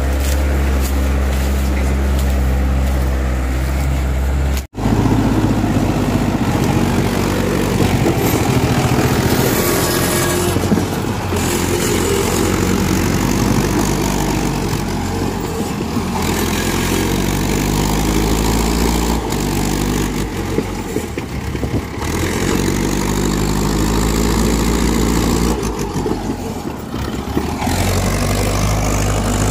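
Mahindra Arjun 605 tractor's diesel engine working under a heavy load of two sugarcane trailers, about 35 tonnes, its revs rising and falling several times. The sound cuts out briefly about five seconds in.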